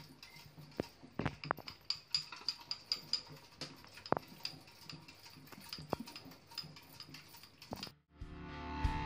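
Water and grit draining from a new Mamod SR1A toy steam engine's boiler into a stainless steel sink, in scattered drips and small ticks as the boiler is flushed of manufacturing grit. About eight seconds in it cuts off and music fades in.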